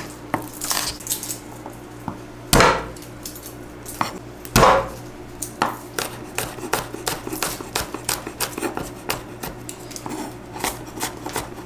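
A chef's knife chopping onion and garlic on a wooden cutting board: a run of short knocks of the blade on the board. Two heavier thuds come about two and a half and four and a half seconds in, and the chopping turns quicker and more even in the second half.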